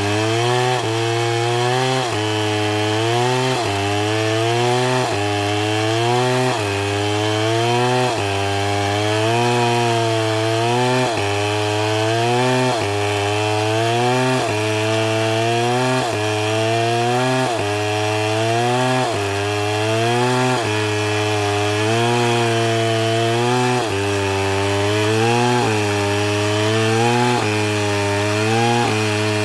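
Stihl chainsaw ripping a log lengthwise at full throttle. Its engine pitch rises and dips in a steady rhythm about every one and a half seconds as the chain loads up in the cut and frees again.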